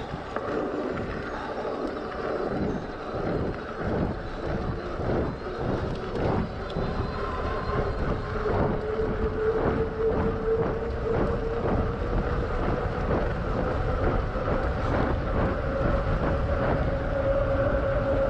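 NAKTO 36 V 300 W fat-tyre electric mountain bike being ridden over a rough trail, with rattles and knocks from the bike over bumps and wind on the microphone. From about eight seconds in, a steady whine rises slowly in pitch and grows louder, typical of the electric motor under power.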